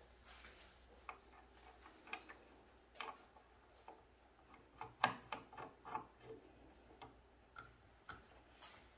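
Faint, irregular clicks and ticks of a round drawer knob being screwed by hand onto a painted wooden drawer front, the loudest a little after halfway.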